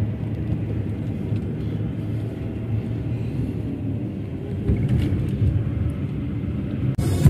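Steady low rumble of a car driving, engine and road noise together, which cuts off abruptly just before the end.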